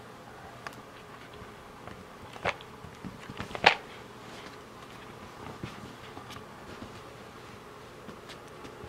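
Small sharp clicks and knocks as kittens paw at the cardboard board game box and its small wooden pieces, one louder knock just before the middle, over a faint steady hum.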